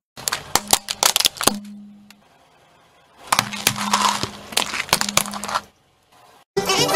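Car tyre rolling over small plastic objects and crushing them: a run of sharp cracks and snaps over a low steady hum, in two bursts with a pause of about a second between them.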